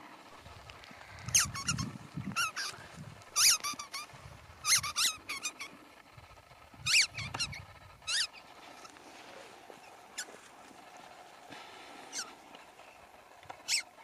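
Squeaky rubber ball squeaking as a husky chews on it: quick clusters of high squeaks, thick in the first half and sparser later, with dull chewing thuds under some of them.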